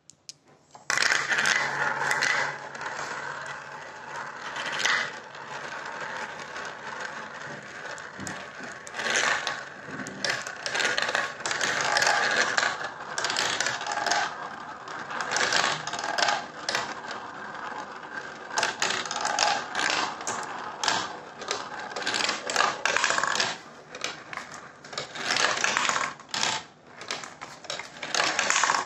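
Glass marbles rolling and clattering through a plastic marble-run track. It starts about a second in: a steady rolling whir as they circle the funnels, broken by many quick clicks and knocks as they drop through the tubes and strike the track pieces.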